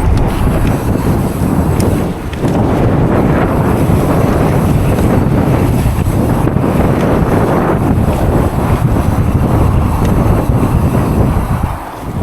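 Heavy wind buffeting on a chest-mounted camera's microphone as a mountain bike rides the trail, with short lulls about two seconds in and near the end.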